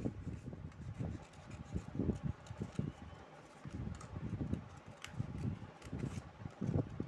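Stiff card paper being handled and trimmed with small scissors: uneven low rustling and dull knocks, with a few sharp snips.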